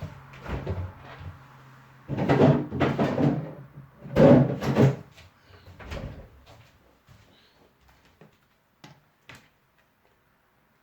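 Kitchen handling noises: two loud clattering spells, each about a second long, with lighter knocks around them and a couple of sharp clicks later on.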